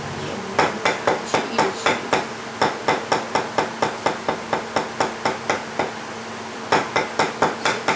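Wooden spirit-writing stick tapping rapidly on a tabletop in a Taiwanese spirit-writing session, about four to five sharp knocks a second, stopping for about a second near the end and then starting again.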